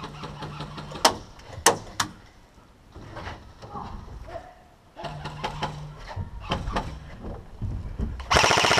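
Airsoft rifle firing a short full-auto burst near the end: a fast, even rattle of shots lasting under a second. Earlier there are three sharp single cracks in the first two seconds and a low steady hum.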